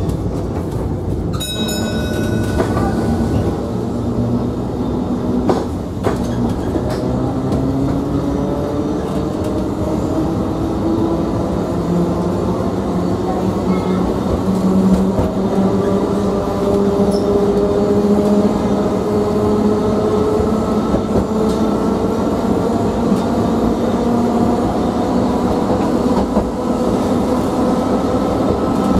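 London Metropolitan tramcar 331 running along the track, heard inside its saloon: a steady rumble of wheels on rail with a few sharp clicks. Over it the motor and gear whine climbs slowly in pitch as the tram picks up speed.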